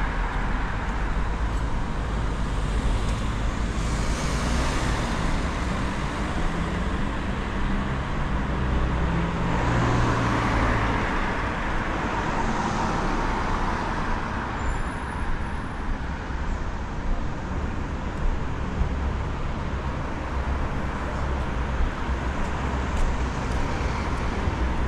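City street traffic: a steady wash of road noise and engine hum, with several vehicles passing, the loudest about ten seconds in.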